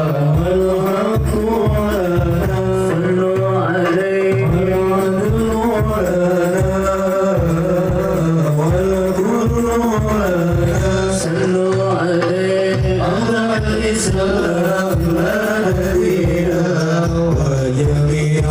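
Background music: a song with a singing voice over a steady rhythmic drum beat.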